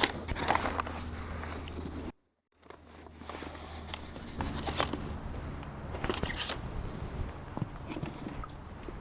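Crackling, rustling handling noises with scattered clicks over a steady low hum. The sound cuts out completely for about half a second about two seconds in, then fades back in.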